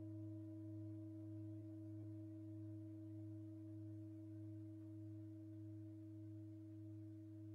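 Tibetan singing bowls left ringing on their own: a faint, steady hum of several held tones, the lowest one wavering in a slow pulsing beat, slowly fading away.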